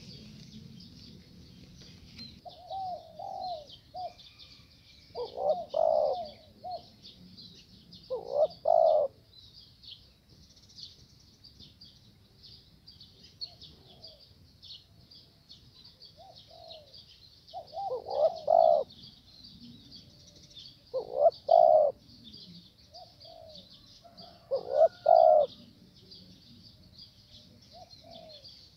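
Spotted doves cooing: repeated phrases of a few soft notes leading into a louder coo, with a pause of several seconds midway. A constant high-pitched chirring runs underneath.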